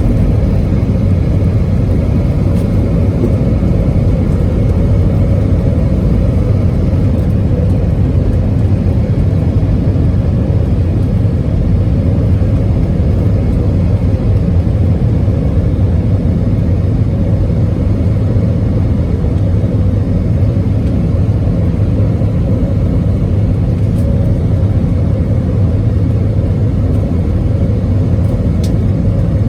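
Steady low rumble of a moving vehicle, even and unbroken throughout.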